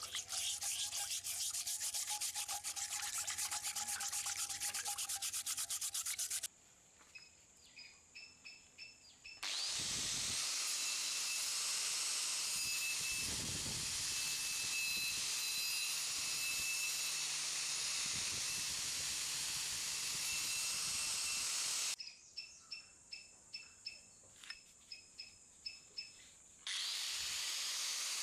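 A stiff brass wire brush scrubbing rust off a cast-iron charcoal iron in water, in quick steady strokes. After a pause, an angle grinder with a wire cup brush strips rust from the iron's body in a loud, steady grind for about twelve seconds. It stops, then starts again near the end.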